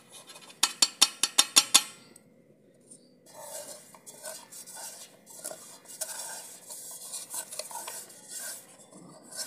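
Stainless steel mixer-grinder jar being knocked to loosen ground coconut: a quick run of about eight sharp metallic taps, then a long stretch of light scraping and rustling as the powder is shaken out into a steel bowl.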